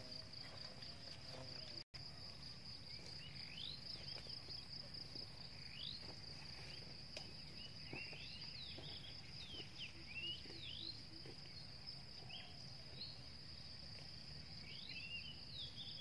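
Faint outdoor insect chorus: a steady, high, fast-pulsing trill, joined from about three seconds in by scattered short sweeping chirps. The sound drops out for an instant near two seconds in.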